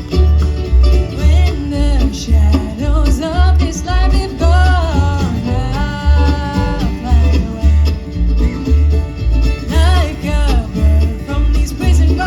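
Live bluegrass band playing an instrumental break: banjo and guitar picking over a steady bass beat about twice a second, with a bending melody line on top.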